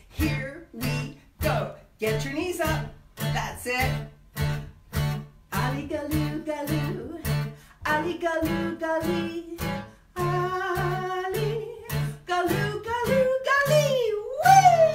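Acoustic guitar strummed in a steady, slow marching beat, about two strums a second, with a voice singing the melody over it. The singing holds longer notes from about eight seconds in and ends on a note that slides up and then falls away.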